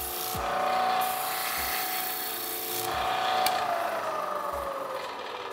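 Disc sander motor running while a rubber crepe cleaning block scrubs against the spinning 100-grit sanding disc, a loud rough rubbing that works gummed-up pitch out of the paper. About three and a half seconds in there is a click, and the motor's hum then falls slowly in pitch as the sander spins down.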